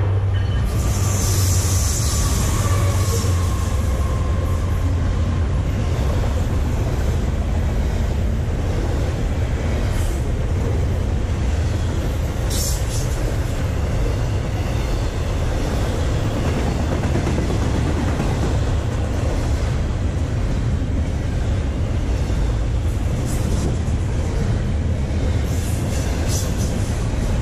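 Norfolk Southern freight train passing close by: the EMD SD70ACe lead locomotive's two-stroke diesel goes by in the first few seconds. Then a long string of double-stack intermodal container cars rolls past with a steady, heavy rumble of wheels on rail, broken by a few brief high-pitched wheel squeaks.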